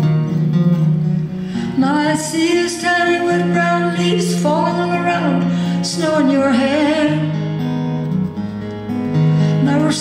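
Solo acoustic guitar playing a steady picked accompaniment, live. A woman's singing voice joins about two seconds in, with vibrato on long held notes.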